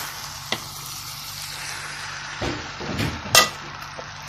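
Macaroni and noodles sizzling in a hot metal pan as a wooden spatula stirs and tosses them. There is a light tap about half a second in and a sharp knock of the spatula against the pan a little after three seconds.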